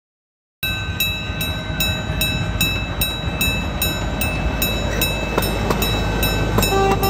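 Ride-on miniature railway train running along its track: a steady rhythmic clicking about three times a second over a steady whine. It begins abruptly about half a second in.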